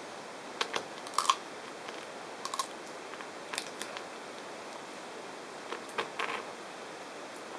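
Leopard tortoise biting and chewing a spineless prickly pear cactus pad: a series of crisp crunching snaps, coming in small clusters of two or three bites.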